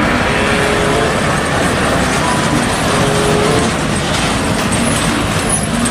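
Traffic noise from a road as a Hino car-carrier truck loaded with pickup trucks drives past: a steady rushing rumble of engine and tyres.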